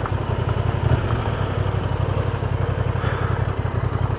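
Honda Transalp's twin-cylinder engine running steadily at low revs, a low even rumble with no rise or fall in pitch.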